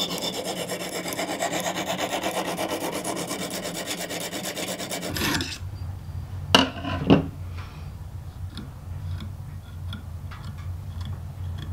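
Lansky extra-coarse hone stroked fast and evenly back and forth along a clamped filleting knife's edge, a rasping grind that raises a burr; it stops about five and a half seconds in. Then come two sharp clacks as the hone is put down on the table, followed by faint light ticks.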